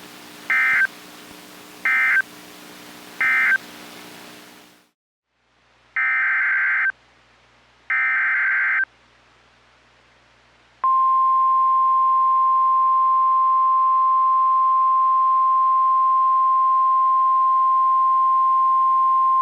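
Emergency Alert System digital data bursts from a weather radio broadcast. First come three short buzzy bursts over radio hiss, the end-of-message code closing one warning. Then come two longer bursts of the header for the next alert, and about 11 s in the steady single-pitched 1050 Hz NOAA Weather Radio warning alarm tone begins and holds for about nine seconds.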